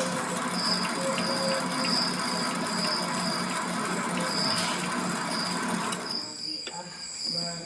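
MX 600A mini lathe running with a steady hum and hiss and a high whine that pulses about once a second; it winds down and stops about six seconds in, followed by a few light clicks.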